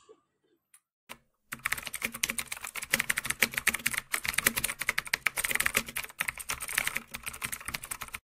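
Rapid keyboard typing sound effect, a fast run of keystroke clicks that starts about a second and a half in after a couple of single taps and stops just before the end.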